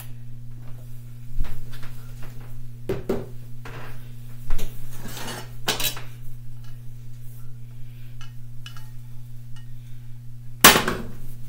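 Stainless-steel skillets clanking on a glass-top electric stove as a pan is handled, lifted and set back down: a handful of separate knocks, the loudest near the end, over a steady low hum.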